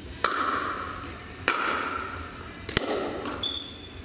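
Pickleball rally: three sharp pops of paddle on plastic ball, about a second and a quarter apart, each echoing in the hall. A short high squeak comes near the end.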